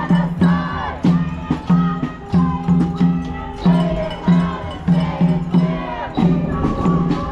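Marching protest crowd chanting in rhythm over a drum beaten about twice a second.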